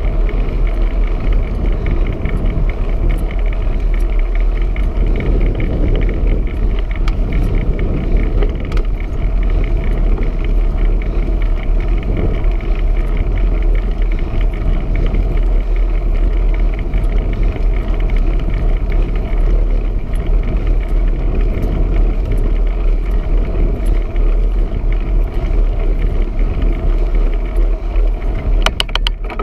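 Steady rush and rumble of wind on the microphone of a camera riding along on a moving bicycle, with road noise from the ride. A few sharp clicks just before the end.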